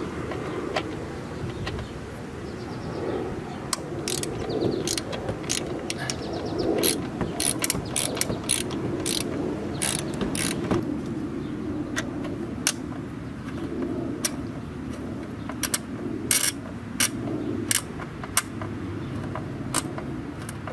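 Flex-head 3/8-inch ratchet with a Torx bit, its pawl clicking in short irregular runs of sharp clicks as it works a Torx screw.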